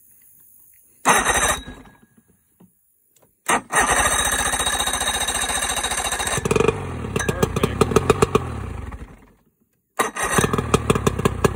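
Old outboard motor with its cowling off being cranked to start: a brief crank, then a longer steady crank about three and a half seconds in. The engine starts firing unevenly and sputtering, dies away, then catches again with irregular firing near the end.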